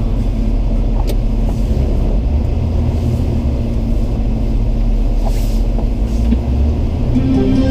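Steady low rumble of a car, as heard while driving.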